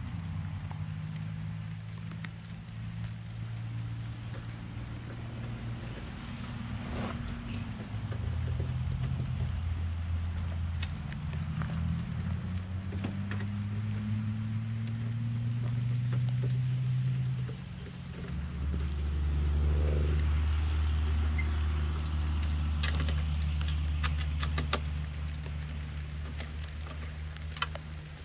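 A low droning hum that shifts in pitch and sometimes glides, with a light patter of rain and scattered small clicks and knocks.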